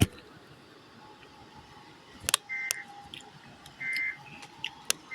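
Emergency Alert System end-of-message data bursts: short warbling two-tone digital chirps about a second apart, which mark the end of the alert. Sharp clicks come at the start and twice more between the bursts.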